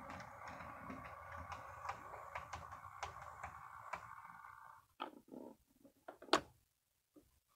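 HO scale model diesel locomotive running slowly with two freight cars: a faint steady motor and gear hum, with light irregular clicks from the wheels over rail joints and turnouts. It stops just under five seconds in. A few small clicks follow, then one sharp tap.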